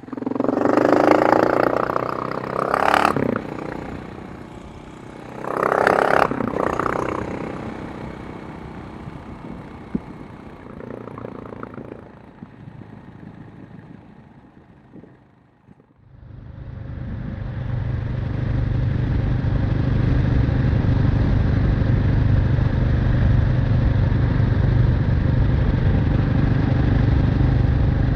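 KTM 690 Enduro R's single-cylinder engine revved twice in the first seven seconds, each rev dying away. About sixteen seconds in, the sound changes abruptly to the engine running steadily.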